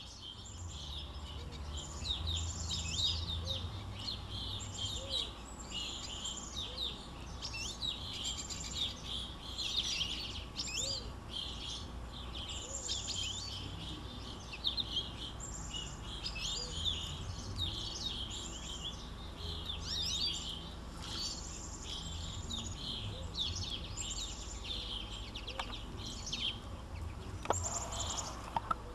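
Small songbirds chirping and singing in a dense, overlapping chorus of short high calls and trills, with a brief rustle near the end.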